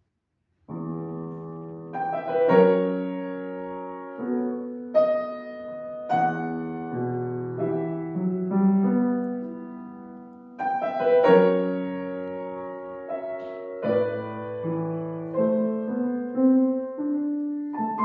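Grand piano played solo: a pasillo in E minor, beginning about a second in.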